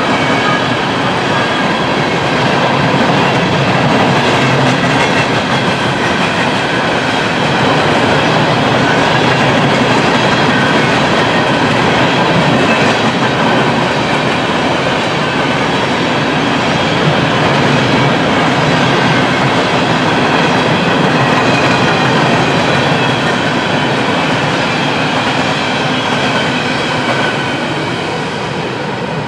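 Empty coal cars of a unit coal train rolling past: the steady clatter and rumble of steel wheels on the rails, with faint high-pitched ringing over it, easing off a little near the end.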